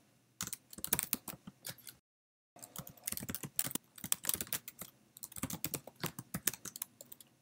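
Typing on a computer keyboard: quick, irregular runs of key clicks, with a brief dead-silent break about two seconds in.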